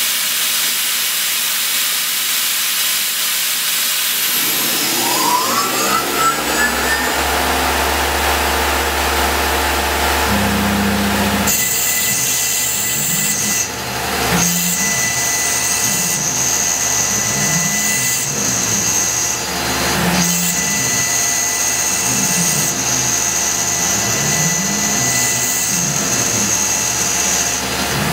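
Tormach PCNC 1100 CNC mill running, with its spindle driving a fine end mill through a small steel cufflink blank. The spindle whine rises in pitch about five seconds in. From about eleven seconds a steady high cutting hiss comes in over a low warbling hum that shifts pitch as the tool moves.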